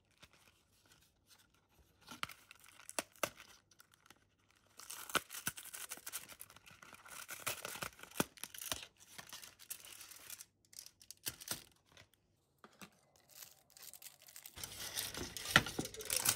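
Cardboard box and foil wrapper of a white chocolate bar being torn open and crinkled in irregular bursts, with small clicks; the loudest crinkling comes near the end as the foil is peeled off the bars.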